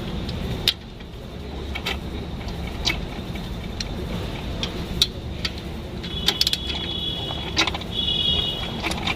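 Diesel Jeep Compass running with the new clutch and flywheel making scattered metallic clicks and two short jingling rattles about two-thirds of the way through, over a steady low engine hum. The mechanic says this clutch noise is normal.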